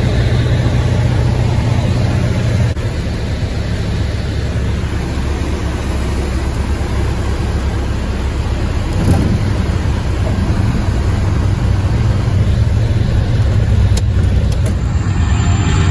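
Cabin noise of a single-engine propeller airplane: the piston engine and propeller running steadily with airflow noise. The sound drops a little about three seconds in, then builds again through the second half.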